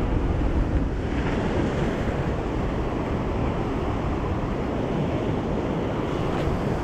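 Steady ocean surf washing on the shore, with wind rumbling on the microphone.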